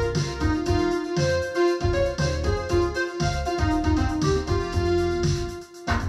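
Recorded music playing through a hi-fi system's floor-standing loudspeakers: a keyboard melody over a pulsing deep bass line, briefly dropping away just before the end.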